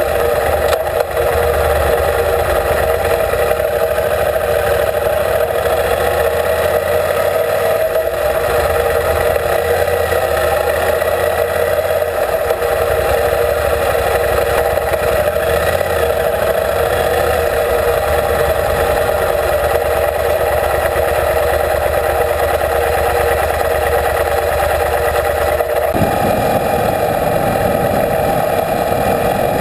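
Motorcycle engine running steadily under the rider, heard from a camera mounted on the bike, mixed with wind and road noise. Near the end the low rumble gets louder as the bike rides an open gravel road.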